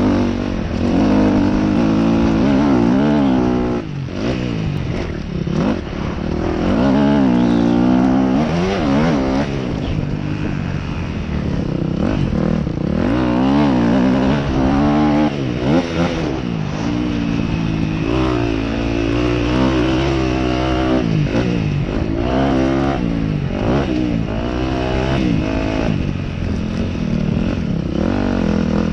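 Motocross dirt bike engine ridden hard around a dirt track, its pitch climbing and dropping over and over as the rider accelerates out of turns and backs off into them.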